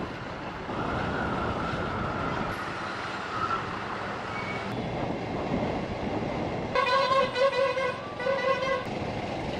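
A vehicle horn honks twice near the end, each blast about a second long, over a steady rush of motorcycle and traffic noise.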